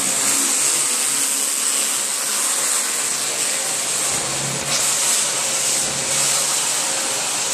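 Vacuum cleaner running steadily: a loud, even rush of air with a high whine.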